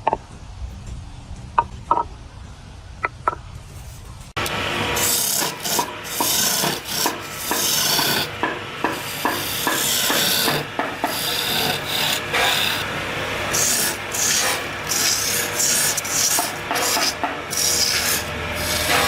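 A hand tool rasping across wood in quick repeated strokes, loud and continuous after an abrupt start about four seconds in. Before that come a few light taps and clicks.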